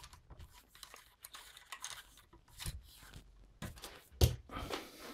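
Light rustling and small clicks as cleaning patches and a cleaning rod are handled and worked through a revolver barrel, with one sharper knock a little past four seconds in.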